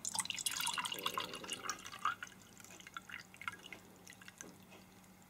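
Water poured from a plastic jug into a cup, splashing steadily for about two seconds, then thinning to scattered drips and trickles.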